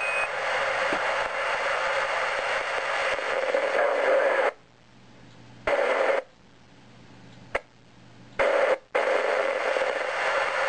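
Static hiss from an FM amateur-radio transceiver receiving the balloon's 145.200 MHz transmission between spoken passages. The hiss cuts off abruptly three times: for about a second, then for about two seconds, then very briefly. A sharp click comes in the second gap.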